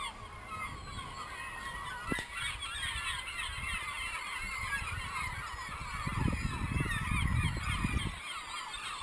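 A flock of birds calling, many short calls overlapping at once, with wind rumbling on the microphone, strongest from about six seconds in.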